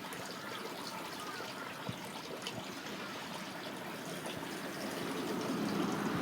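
Water flowing in a swollen drainage channel, a steady trickling rush that grows a little louder near the end.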